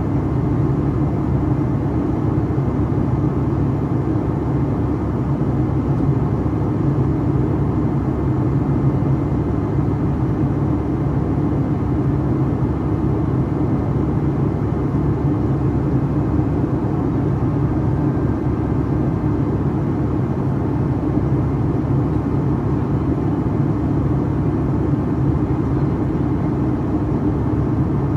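Steady cabin drone of a Boeing 757-300's jet engines and the airflow, heard from a seat beside the wing in flight, with an even low hum running under the rush of air.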